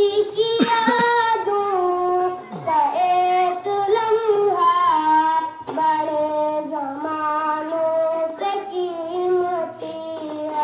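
A young schoolboy's voice chanting a naat, an Islamic devotional poem in praise of the Prophet, in long held melodic lines with short breaks between phrases.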